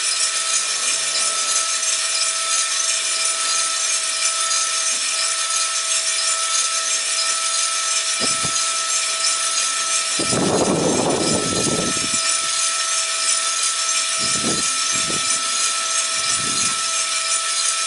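Coffee beans tumbling in the rotating drum of a Cormorant CR600 gas roaster just after charging, with the burner off. The sound is a steady rushing rattle over the even hum of the drum motor and exhaust fan. About ten seconds in, a louder rush lasts for about two seconds, and a few shorter ones follow.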